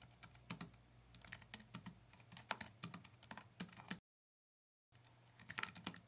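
Keyboard typing: a quick irregular run of key clicks that cuts off about four seconds in and starts again about a second later.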